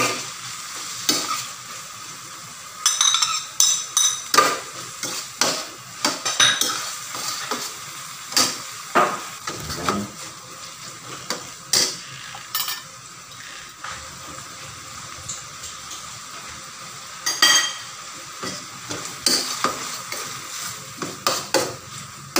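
Diced ham and vegetables sizzling in butter and oil in a large stainless steel pan, with a metal spatula scraping and knocking against the pan in irregular clusters as the food is stirred.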